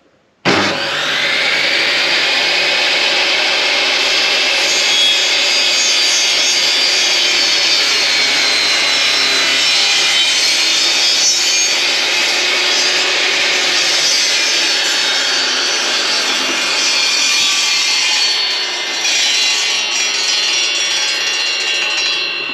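Stanley SST1801 1800 W table saw switching on abruptly about half a second in, then running at full speed and cutting through wood for about twenty seconds. The sound eases near the end as the cut finishes.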